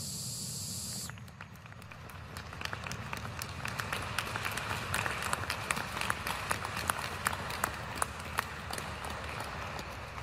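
A small audience clapping, the separate claps of a few people easy to pick out. The clapping starts about a second in, after a short steady hiss, and grows denser.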